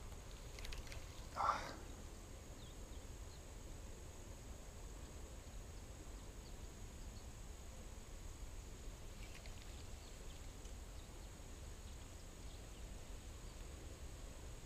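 Quiet outdoor ambience by a pond: a low wind rumble on the microphone and a steady high insect drone, broken about one and a half seconds in by one short animal call, the loudest sound.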